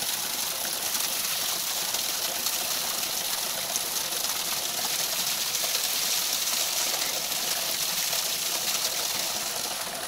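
Small spring-fed waterfall splashing steadily down a mossy rock face: an even, unbroken hiss of falling water.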